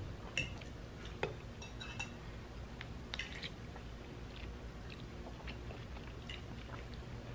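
Close-miked chewing of spaghetti, with soft wet mouth clicks and noodles slurped in about three seconds in.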